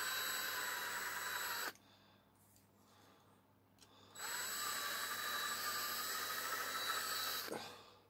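Electric drill running as it drills out the rivets holding a diecast toy car's base plate. It stops after under two seconds, starts again about four seconds in with a brief rise in pitch as it spins up, and winds down near the end.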